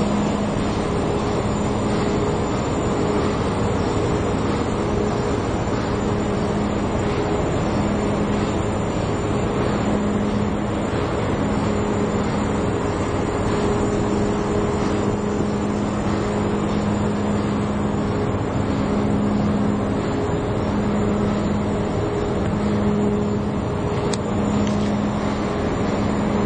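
Steady noise of offshore drilling-rig machinery: an even, loud rumble with a hum that swells and fades every second or two.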